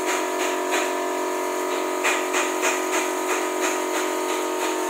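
Steady machine hum of several fixed tones, with faint even ticks about three times a second.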